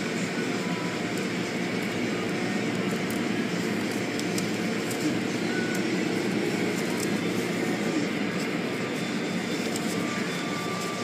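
Car wash equipment running with a steady roar that does not change.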